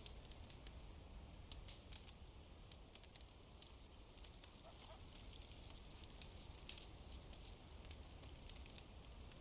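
Campfire crackling faintly, with scattered sharp pops.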